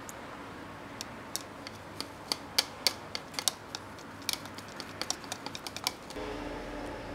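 Wire balloon whisk clicking and tapping irregularly against the sides of a plastic measuring jug while stirring cake flour into heavy cream. Near the end the clicks stop and a steady low hum comes in.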